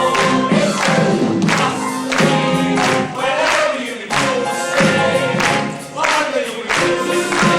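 Musical-theatre cast singing together as a chorus, a song with musical backing.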